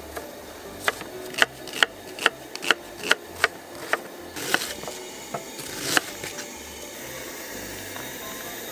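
Kitchen knife chopping onion on a wooden cutting board, about seven sharp strokes at two to three a second. It is followed by a rough scraping and a single knock as the chopped onion is pushed into a stainless steel bowl.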